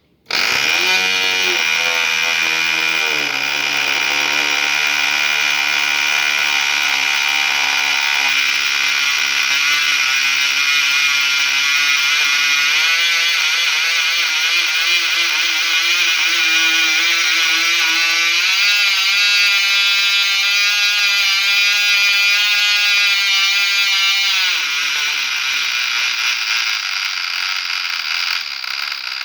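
Cox .049 single-cylinder two-stroke glow engine with a 6x3 propeller running on a test run after a rebuild: a loud, high-pitched buzz that starts abruptly. Its pitch steps up several times, drops about 24 seconds in, and runs lower toward the end.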